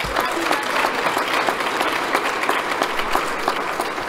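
Audience applauding, a steady wash of many hands clapping.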